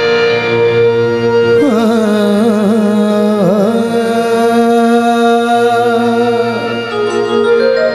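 Harmonium playing sustained chords. About two seconds in, a male singer joins with a long, held, ornamented note that wavers in pitch, the opening of a devotional qaseeda; the voice drops out shortly before the end while the harmonium carries on.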